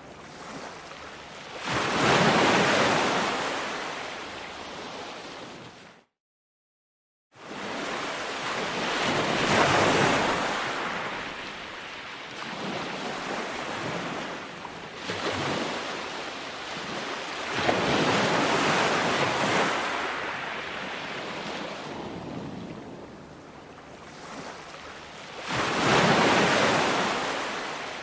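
Ocean waves breaking on a beach, a loud surge of surf about every eight seconds with a softer wash between. About six seconds in, the sound cuts out completely for just over a second, then resumes.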